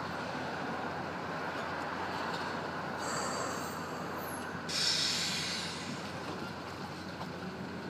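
Steady outdoor city background noise with a low hum. There are two hissing bursts like released air, a short one about three seconds in and a louder one near five seconds that fades out.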